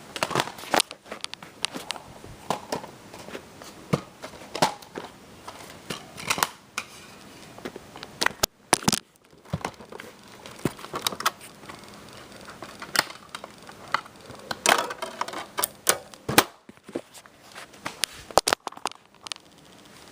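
Plastic crinkling and crackling, with many irregular sharp clicks, as a DVD case is unwrapped and opened by hand.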